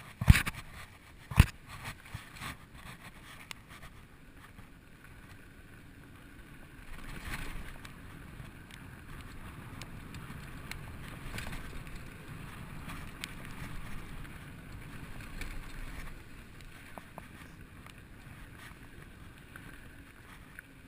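2012 Specialized SX Trail mountain bike rolling down a dry dirt singletrack: a steady rumble of tyres over dirt and stones with scattered rattles and clicks. A few sharp knocks come in the first second and a half, and the rolling noise grows louder through the middle stretch.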